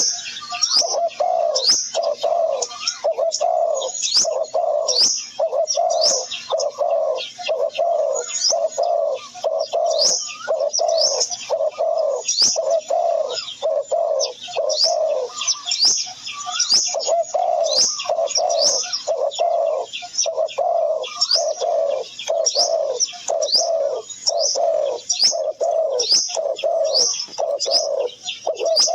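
Birdsong: a low call repeated about twice a second, with a short pause about halfway, under many quick high chirps.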